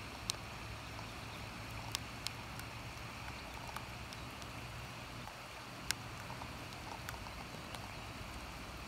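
Steady patter of rain over a low hum, with sharp taps of single drops striking close by, the loudest shortly after the start, about two seconds in and about six seconds in.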